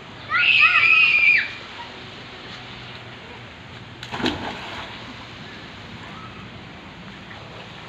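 A child's high-pitched squeal lasting about a second near the start, with a brief thump about four seconds in, over a steady background hiss.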